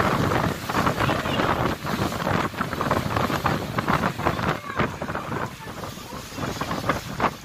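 Wind buffeting the microphone on the open deck of a moving ferry, gusting unevenly over the rush of water.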